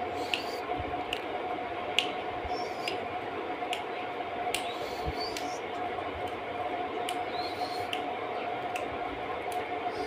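Rose-ringed (Indian ringneck) parakeet nibbling at a rope-strung wooden bed frame, its beak making scattered small clicks and scrapes, with a few short high chirps. A steady hum runs underneath.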